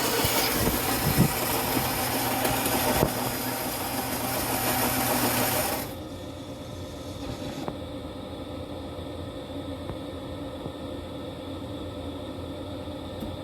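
Philips 2200 automatic espresso machine running with a loud buzzing and hissing, which cuts down sharply about six seconds in to a quieter steady hum.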